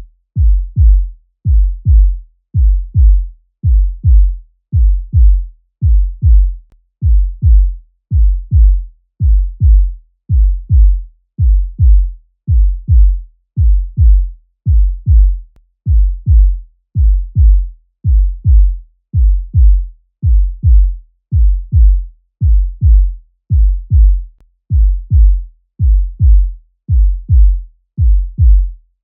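Human heartbeat sound effect: a steady lub-dub of paired low thumps, about one pair a second.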